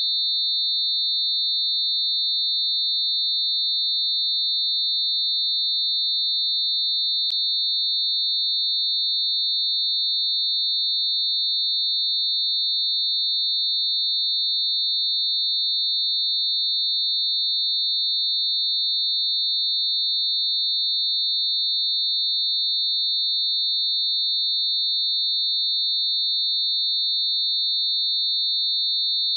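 Synthetic high-pitched steady tone: a few closely spaced pure tones mixed around 4000 Hz, held without change. A faint click about seven seconds in.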